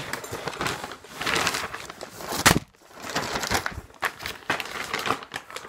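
Plastic packaging being handled: a torn-open plastic mail satchel, a plastic bag and bubble wrap rustling and crinkling in irregular bursts, with one sharp knock about two and a half seconds in.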